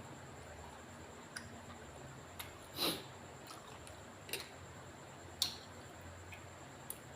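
Scattered light clicks and taps, with one louder short scrape or rustle about three seconds in, over a faint low steady hum.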